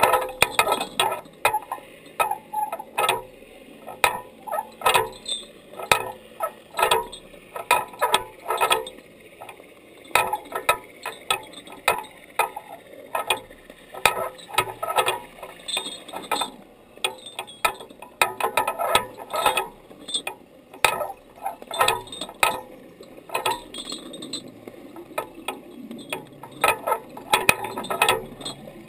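Irregular clicking and ticking recorded underwater: several sharp clicks a second, some bunched in quick clusters, over a faint background.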